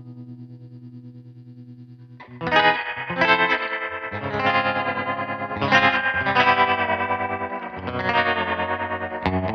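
Hallmark Swept Wing electric guitar played through a Crazy Tube Circuits White Whale spring reverb and tremolo pedal. A held chord dies away with a fast, even tremolo pulse. About two seconds in, strummed chords start, louder, ringing with spring reverb and the tremolo still pulsing.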